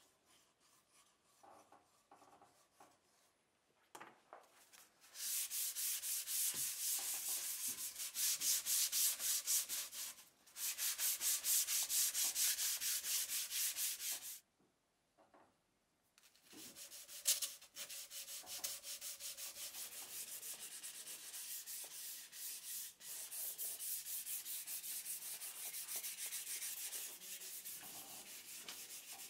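Sandpaper rubbed quickly back and forth over the willow of a cricket bat. It starts about five seconds in, with a brief break and then a two-second pause partway through.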